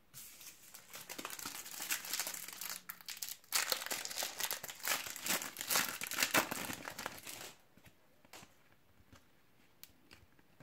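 Foil Panini Adrenalyn XL card packet being torn open and crinkled in the hands, with a short pause about three and a half seconds in. After about seven and a half seconds only a few faint taps of the cards being handled remain.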